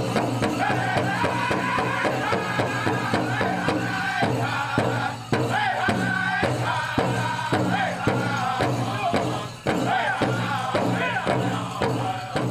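Powwow drum group singing a prairie chicken dance song: singers' voices in unison over a big drum struck about twice a second.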